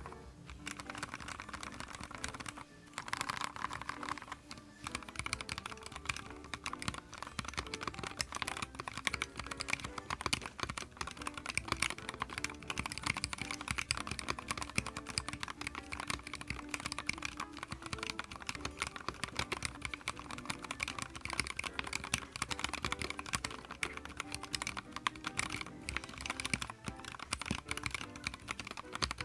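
Continuous fast typing on a YUNZII X75 PRO gasket-mounted mechanical keyboard, a dense run of keystroke clicks with a brief pause about three seconds in.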